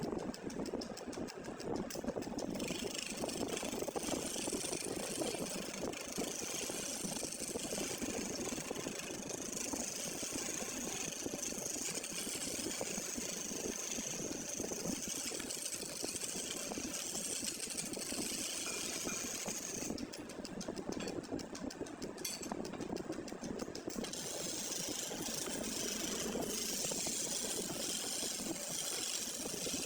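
Power woodworking machine running steadily while wood is cut, with a hiss that drops out for a few seconds about two-thirds of the way through as the cutting pauses.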